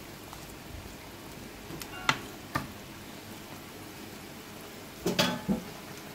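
Pot of curry chicken simmering with a steady low bubbling hiss. A wooden spoon knocks sharply on the pot twice about two seconds in, then clatters briefly about five seconds in.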